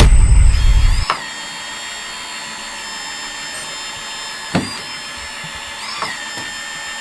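Electric hydraulic pump of an RC skid steer loader whining steadily. A loud low rumble fills the first second, and short swoops in pitch come about a second in, near the middle and again near the end.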